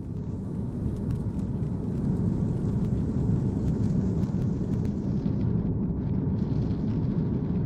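Cabin noise of an Airbus A330 taxiing: a deep, steady rumble of the engines and rolling gear, building over the first couple of seconds and then holding steady, with a fainter hiss above it.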